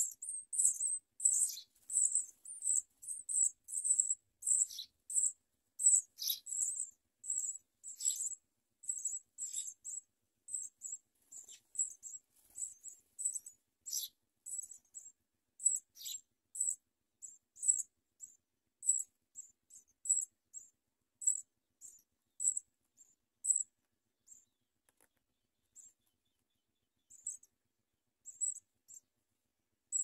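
House sparrow nestlings begging with rapid, high-pitched thin cheeps, several a second at first, thinning out to scattered calls with a short pause near the end.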